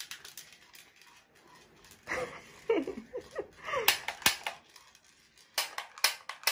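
A series of sharp clicks and taps, faint at first and louder about four seconds in and again near the end. Between about two and three and a half seconds in there are short sliding sounds like a voice.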